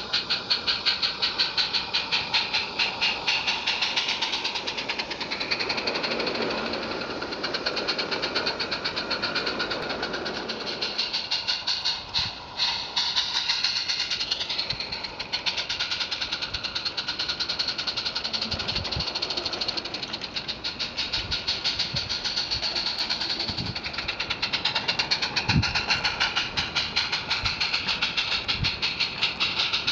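Live-steam garden-scale locomotive, a Roundhouse Lady Anne, chuffing in a rapid, even rhythm as it runs under steam hauling a train of wagons. A few low knocks come in the second half.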